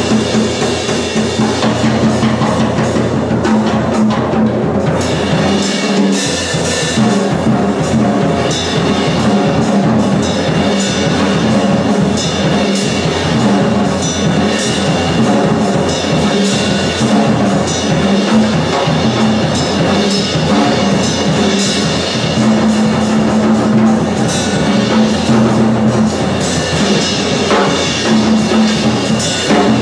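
Live percussion: fast, dense drum strokes played continuously over a held low tone, getting busier and brighter about five seconds in.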